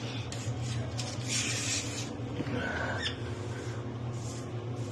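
Old caulking being scraped off a floor with a hand scraper: irregular rasping strokes, the longest about a second and a half in. A steady low hum runs underneath.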